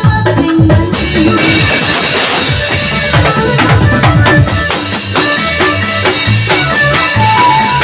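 Remix of Batak gondang music played on a drum kit, with bass drum and snare keeping the beat under pitched melody instruments. A cymbal crash comes about a second in.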